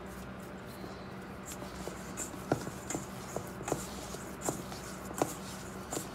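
Dough being kneaded by hand in a stainless steel bowl: soft rubbing and folding, with a string of uneven knocks and taps against the bowl, one or two a second, starting about a second and a half in.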